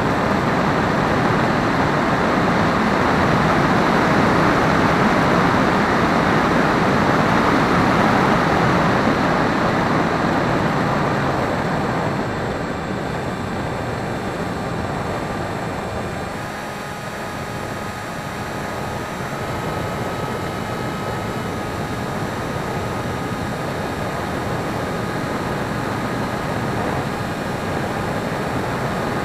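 Onboard sound of a small electric RC plane in flight: a steady rush of wind and propeller noise. The rush is loudest for the first ten seconds or so, eases about halfway through, and a faint steady motor whine shows through after that.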